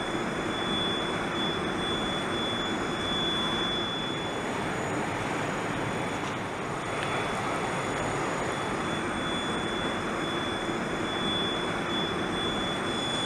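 Steady industrial din of a large assembly hangar: an even rushing noise with a thin high whine over it, the whine dropping away for a few seconds mid-way and then coming back.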